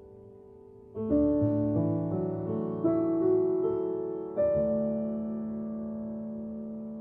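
Background piano music: a soft chord fading, then a short phrase of notes starting about a second in, ending on a chord about four and a half seconds in that is left ringing and slowly dies away.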